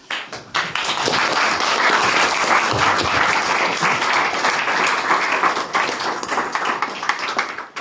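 Audience applauding. It starts about half a second in and dies away near the end.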